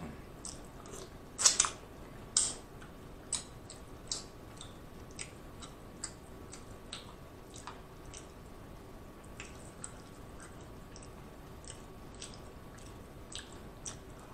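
Close-up wet, sticky clicks and squishes of eating: fingers picking through sauce-covered deshelled seafood and mouth sounds, coming irregularly, with a few louder clicks in the first few seconds.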